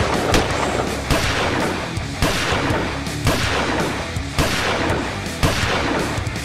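Dramatic background music with a heavy strike about once a second, mixed with bangs like gunfire sound effects.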